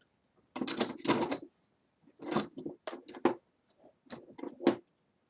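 Hand tools clattering and knocking as someone rummages through a toolbox, in a few irregular bursts of clicks.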